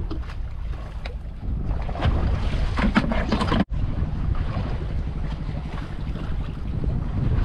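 Wind buffeting the microphone with sea waves around a small fishing boat, a dense low rumble with no engine tone. It gets louder about two seconds in and drops out for an instant about halfway through.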